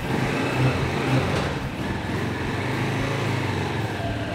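Serpento Falcon 150's single-cylinder, air-cooled 150 cc four-stroke engine running, with a couple of light throttle blips in the first second or so, then steady as the bike pulls away.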